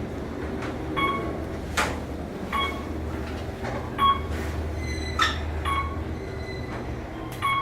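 1996 Otis Elevonic 411 traction elevator cab travelling down, with the steady low hum and rumble of the moving car and machine. Short sharp clicks with a brief ring come about once a second.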